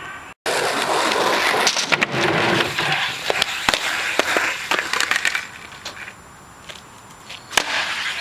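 Skateboard wheels rolling over a paved driveway: a rough rolling noise with many sharp clicks and knocks. It dies down about five and a half seconds in and picks up again near the end.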